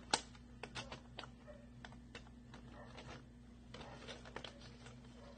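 Scattered light clicks and taps of small craft materials being handled, with a sharper click just after the start, over a faint steady hum.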